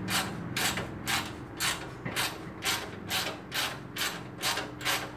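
Hand ratchet wrench being worked back and forth to tighten a bolt, a short clicking rasp on each stroke at about two strokes a second.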